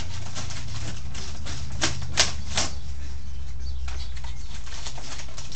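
A Pomeranian scrabbling inside a cardboard box, its claws scraping and knocking on the cardboard in irregular bursts, the sharpest about two seconds in, over a steady low rumble.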